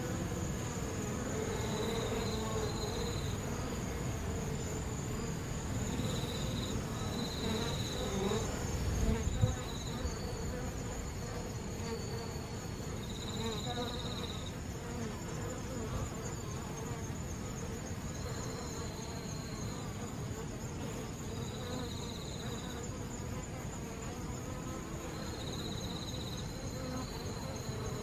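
Western honeybees buzzing in a dense, continuous hum as a mass of them balls up around a hornet at the hive entrance. Over it run a steady high whine and short high trills that come and go, and there is a single knock about nine seconds in.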